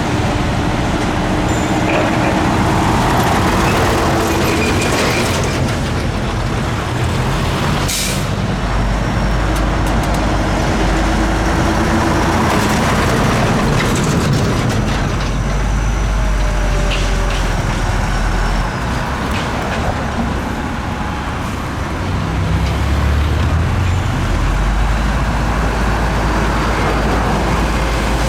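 Heavy diesel earthmoving machinery running with a steady low rumble, with a brief sharp hiss about eight seconds in.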